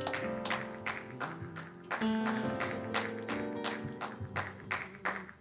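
Soft instrumental worship music: quick, evenly spaced rhythmic strokes over steady held notes, playing on after the song's last line.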